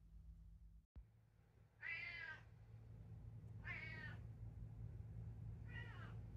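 Domestic cat meowing three times, short quiet meows about two seconds apart: demand meows from a cat that wants the door opened so she can look outside.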